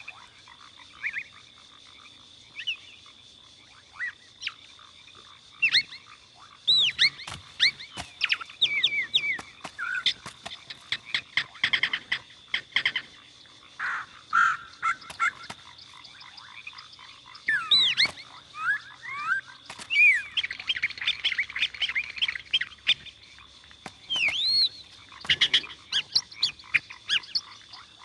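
Birds chirping and calling in many short notes that swoop up and down, some in quick runs, over a steady high-pitched tone.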